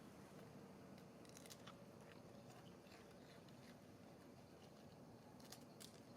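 Near silence: a low background hum with a few faint, crisp clicks, in a cluster about a second and a half in and again near the end.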